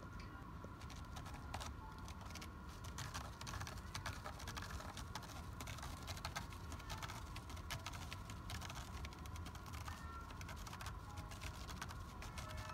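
A cat's claws scratching and picking at a cat tree, a rapid, irregular run of small clicks and scratches, over a faint steady hum.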